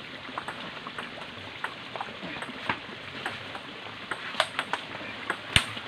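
Table tennis rally: the celluloid ball clicking off the paddles and the table back and forth, with a sharper, louder hit near the end.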